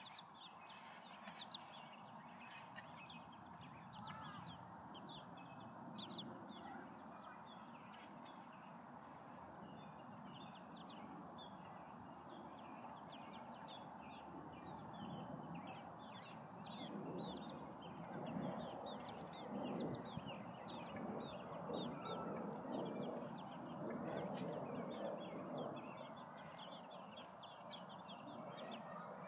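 Week-old silkie chicks peeping: many short high calls, several a second, over a low steady rumble that grows louder about halfway through.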